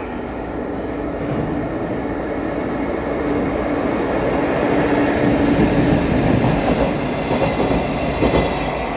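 EF65 electric locomotive and two Hoki 800 ballast hopper wagons passing through a station without stopping, wheels clattering over the rail joints. The sound builds as the locomotive comes alongside, with the loudest joint clacks in the second half as the wagons go by.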